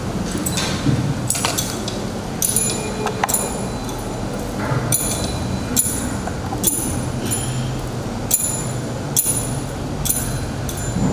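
Brass thurible being swung on its chains during incensing: a dozen or so metallic clinks, roughly one a second, each with a short bright ring. A low hum of the church hall sits under them.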